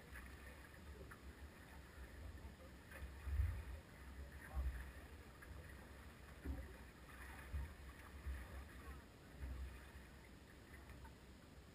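Quiet ambience aboard an aluminium fishing boat lying still on the water: an irregular low rumble with several soft thumps spread through it.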